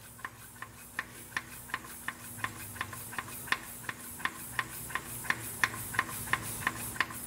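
Hand fuel primer on a rebuilt 8.3L Cummins diesel being pumped, clicking about three times a second with each stroke, while air is purged from the inline-pump fuel system before first start.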